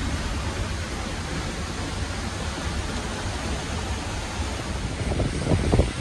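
Seljalandsfoss waterfall close by, a steady, even rush of falling water and spray. Wind buffets the microphone in a few low gusts near the end.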